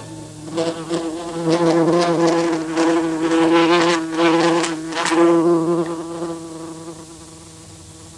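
Honeybees buzzing close by: a loud, wavering drone that swells and dips, then fades away about seven seconds in.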